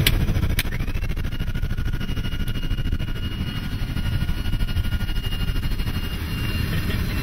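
Cockpit noise of a Beechcraft King Air's twin turboprop engines: a steady low rumble with thin, steady high-pitched tones over it, as the plane rolls on the runway. Two brief clicks come in the first second.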